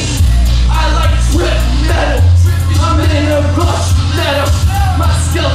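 Loud live electronic music with a heavy, steady bass drone and wavering, voice-like pitched sounds over it; the bass swells about two seconds in.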